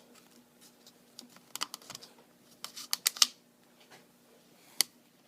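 Sharp, irregular metal clicks and taps from an HK MP5 .22LR's takedown pins being pushed out of the receiver and handled. The clicks come singly, then in a quick cluster about three seconds in, then once more near the end.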